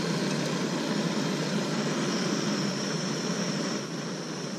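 Butter sizzling and foaming in a nonstick frying pan over a portable gas camp stove, together with the burner's steady hiss. The sound eases a little near the end as the pan is taken by its handle.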